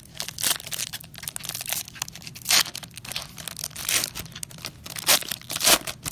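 Foil wrapper of a hockey trading-card pack being torn open and crinkled by hand: irregular crackling with several louder rips.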